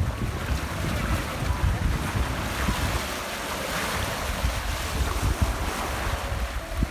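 Wind buffeting the microphone in gusts, over waves washing onto the shore.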